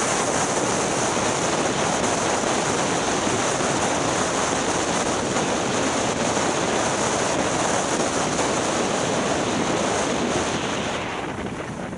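Steady rushing wind noise on the microphone mixed with skis hissing over a groomed piste during a fast downhill run. It eases and softens near the end.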